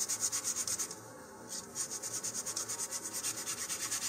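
150-grit sandpaper on a sanding tee rubbed back and forth over balsa wood fins, in quick strokes several a second, with a brief pause about a second in.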